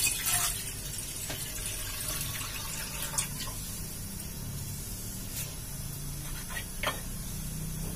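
Water poured from a jug into an aluminium saucepan, splashing briefly at the start; then a steady low hum with a few faint knocks.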